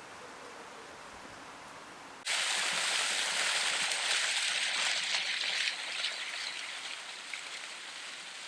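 A faint hiss, then about two seconds in an abrupt switch to a loud, steady rushing noise of falling or running water, which eases a little after the middle.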